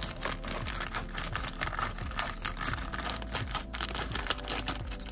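Plastic packaging crinkling and crackling in a dense, irregular stream as a blind box's contents are handled and cut open.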